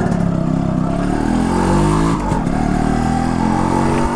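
Yamaha RX100's 98 cc two-stroke single-cylinder engine pulling away under acceleration, its pitch rising. The pitch drops briefly about two seconds in at a gear change, then climbs again.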